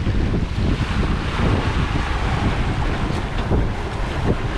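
Steady wind buffeting the microphone over the rush of a sailboat's wake churning behind the stern.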